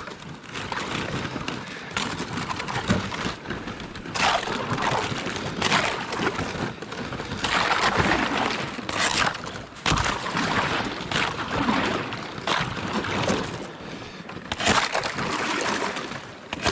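Thin, freshly refrozen ice crunching and breaking, with water sloshing, as a snowmobile sled is pushed across open shore water. The sound comes in repeated surges with a few sharp cracks.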